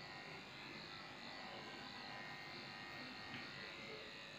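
Electric pet grooming clippers running steadily while shaving a dog's coat.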